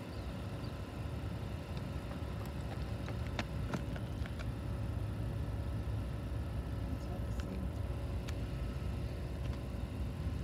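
Diesel locomotives of an approaching freight train running in the distance: a steady low rumble that grows slightly louder, with a few faint clicks.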